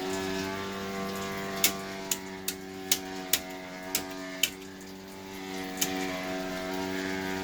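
Circuit breakers being switched off one after another: about eight sharp snapping clicks, spaced roughly half a second apart, over a steady hum that holds several pitches.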